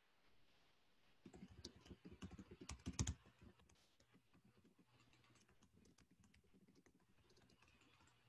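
Faint computer keyboard typing and clicks, starting about a second in and lasting about two seconds, then a few scattered light ticks over a quiet background.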